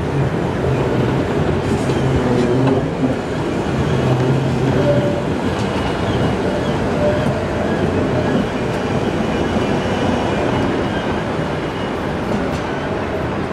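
Low-floor articulated tram running slowly past close by on a tight turning loop: a steady rumble of wheels on rail with a low motor hum in the first few seconds. Faint high whining tones come from the wheels in the curve through the middle.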